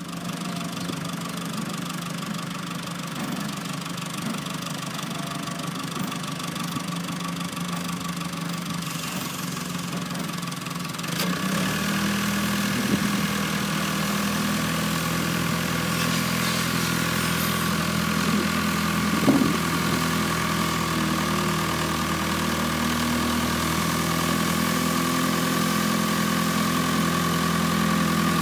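Engine of a 1996 Rosco RB48 road sweeper running steadily, getting louder about eleven seconds in, with its rotary broom sweeping a dirt yard.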